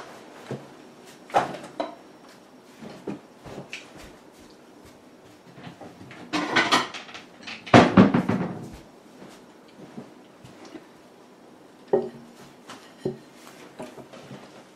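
Household clatter as a plate is fetched from a cupboard: scattered knocks and clicks, a cupboard door and dishes being handled, with the loudest clattering about six to nine seconds in.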